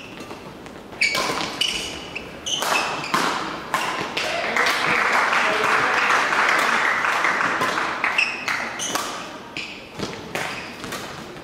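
Badminton singles rally in a large sports hall: sharp racket strikes on the shuttlecock and the players' shoes thudding and squeaking on the court floor, with a rushing noise through the middle of the rally.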